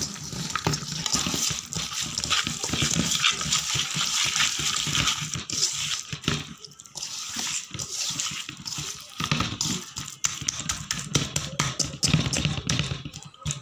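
Hand squeezing and mixing raw chicken pieces in a thick, wet marinade of curd, spices, ginger-garlic paste and cornflour: continuous wet squelching and squishing, with a short pause partway through.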